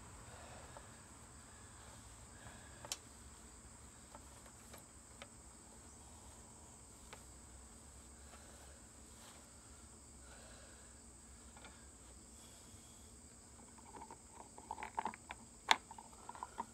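Steady high-pitched insect trill, as of crickets, with faint rag and hand handling on the mower's engine deck: a sharp click about three seconds in and a flurry of small rustles and clicks near the end.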